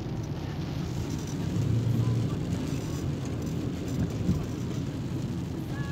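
Steady low rumble of a car's engine and tyres heard from inside the moving cabin, on a rain-wet road.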